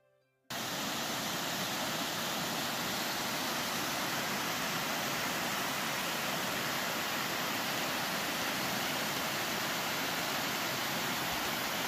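Steady rush of creek water pouring over a rock ledge and through rapids, cutting in abruptly about half a second in.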